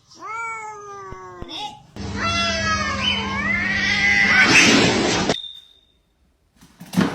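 Domestic cat meowing: a short falling meow, then a long, loud, wavering yowl lasting about three seconds.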